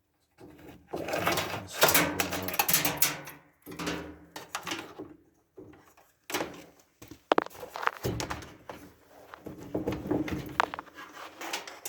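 Irregular scraping, rattling and clicking of dryer parts being handled and pulled during disassembly, with a sharp click about seven seconds in.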